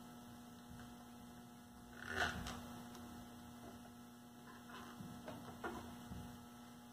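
Faint steady electrical hum, with a few soft handling sounds, the most noticeable about two seconds in, as a rubber protective boot is worked over an alternator's charge-wire terminal by hand.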